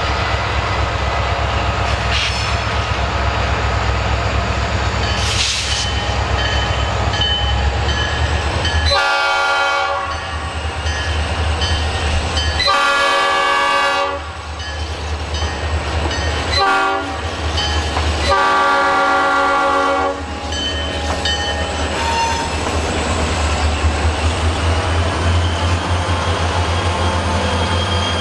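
Escanaba & Lake Superior EMD SD40-2 diesel locomotives rumbling steadily as they approach a grade crossing. About nine seconds in, the horn sounds the standard crossing signal: two long blasts, one short and a final long one.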